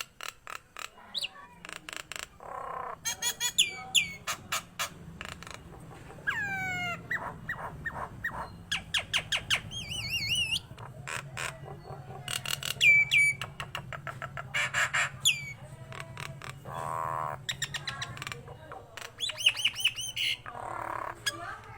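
Nias hill myna singing a loud, varied song. It mixes rapid clicking rattles, sharp whistles that sweep up and down, and short harsh rasping notes, with hardly a pause.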